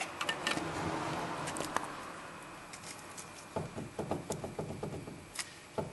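Worn outer tie rod end on a 2001 Pontiac Grand Am clicking and knocking as the steering linkage is worked back and forth, a run of light knocks in the second half. This is play in the joint, the cause of the front-end rattle over bumps.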